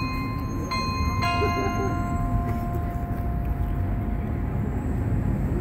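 Tower glockenspiel bells being struck: two bell strikes about a second in, then one bell rings on and slowly fades, with another strike right at the end, over a steady low rumble.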